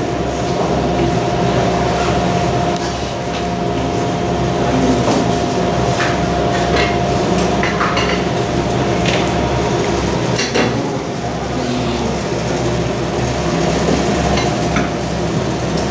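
Steady machine hum with a constant tone, likely bench equipment such as fume absorbers, under scattered light clinks and taps of small metal hand tools on workbenches as contestants assemble and solder circuit boards.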